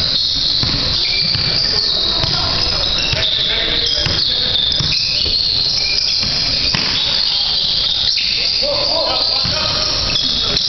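Basketball game on a hardwood gym court: the ball bouncing as it is dribbled, with players' shoes and scattered voices, over a steady high hiss.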